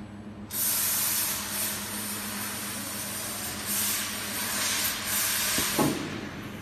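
Steady loud hiss like blowing air, starting about half a second in and fading out near the end, over a low steady machine hum.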